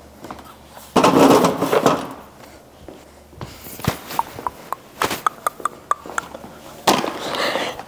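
Workshop handling noise: paper towels rustling loudly about a second in and again near the end, with a run of short clicks and light clinks in between as objects are handled.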